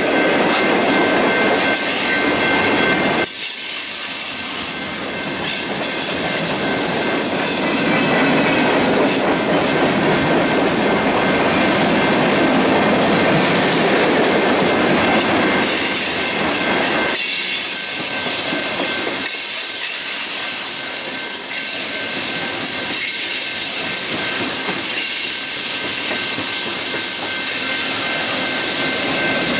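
Freight train cars rolling past at close range: a steady rumble of steel wheels on rail, with a thin high wheel squeal running through it.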